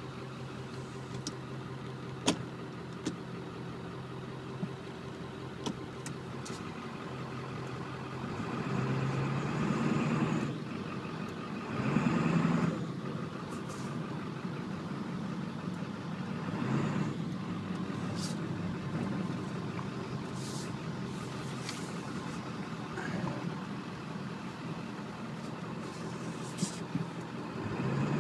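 The 1996 Ford F250's straight-piped 7.3-litre Power Stroke turbo diesel V8 is heard from inside the cab as the truck is driven up through the gears of its five-speed manual. The engine note swells under throttle and drops off sharply at each shift.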